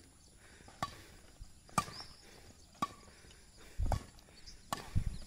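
Badminton rackets striking a shuttlecock in a rally, sharp pocks about once a second. Near the end come a couple of dull low thuds.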